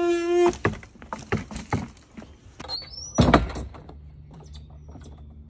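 Sneakers stepping along the wooden slats of a raised bike-trail ramp: a drawn-out squeak at the start, a run of footfalls knocking on the boards, and one heavy thump a little past three seconds in.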